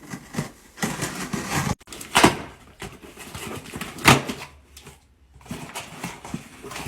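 A mail package being opened by hand: rustling and crinkling of the packaging, with louder sharp noises about two and four seconds in.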